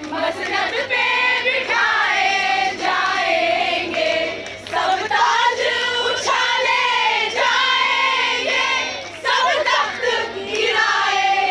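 A group of women singing loudly together in unison, in long phrases with short breaks about four and nine seconds in.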